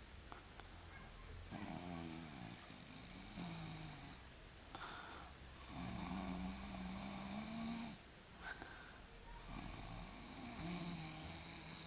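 A sleeper recovering from surgery snoring steadily: about four long droning snores a few seconds apart, the longest about two seconds.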